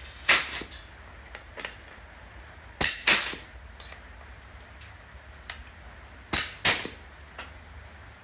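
A sheet-metal hole punch punching holes in a steel panel, three times, each stroke a pair of sharp snaps about a third of a second apart.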